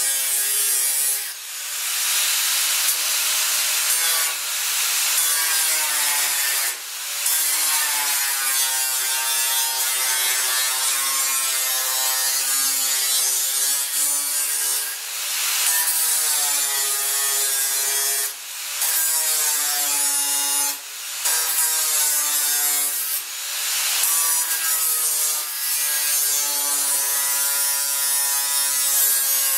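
Small electric angle grinder with a cut-off wheel slicing through sheet steel. The motor's whine wavers in pitch as the disc loads in the cut, over a loud hiss of grinding, with brief drops in level every few seconds.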